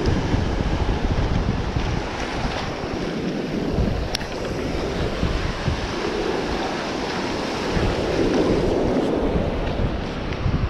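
Sea surf breaking and washing ashore, with wind buffeting the microphone; a wave's wash swells loudest about six to nine seconds in.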